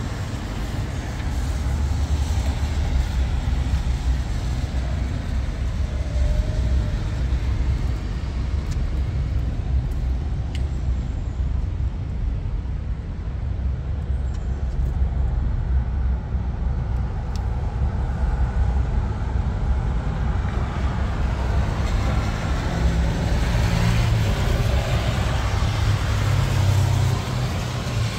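A steady, low outdoor rumble of background noise that gets somewhat brighter and hissier near the end.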